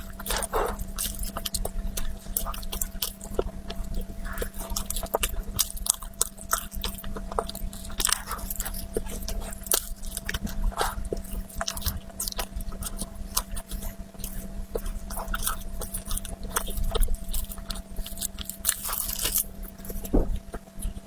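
Close-miked chewing and biting of chocolate dessert: irregular crunches, wet mouth clicks and smacks, over a faint steady hum.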